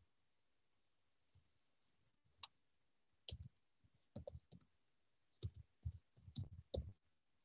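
A quiet run of irregular short clicks and soft knocks, about a dozen of them, starting about two seconds in and stopping shortly before the end.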